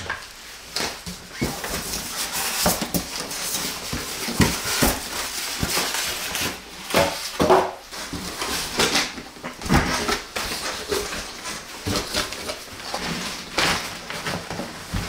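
Packaging handling: a plastic bag crinkling and rustling, with irregular scrapes, knocks and squeaks from the cardboard box and styrofoam packing as a boxed party speaker is worked out of its carton.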